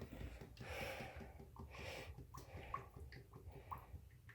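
Motor oil being poured from a bottle into a BMW engine's oil filler, faintly glugging with small bubbling blips.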